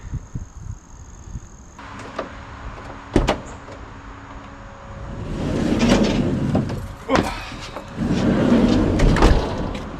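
Milwaukee M18 Fuel Sawzall cordless reciprocating saw cutting in two runs of a second or two each, one about halfway through and one near the end. Before it come a few knocks and a sharp click about three seconds in.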